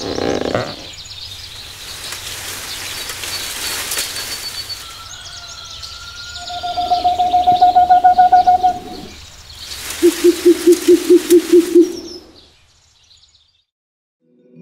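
Owl calls over a faint night-time hiss: a fast, pulsing trill of hoots about six seconds in, then a lower series of eight quick hoots, before the sound fades out near the end.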